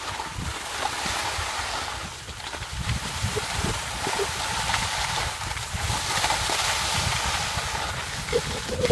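Wind buffeting the microphone while skiing downhill, with the steady hiss of skis sliding over snow.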